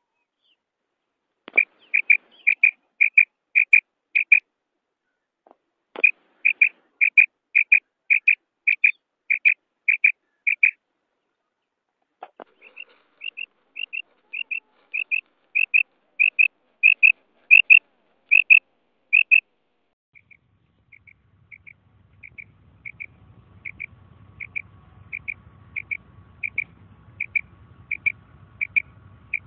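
Female common quail calling: a run of short, high 'krik' notes repeated about two to three times a second, in bouts broken by brief pauses. A faint low hum comes in under the later notes.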